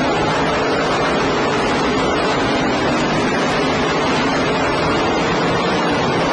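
Engines of a field of race cars running at speed, heard as a steady wash of noise with a faint engine note inside it. The recording is poor and heavily distorted.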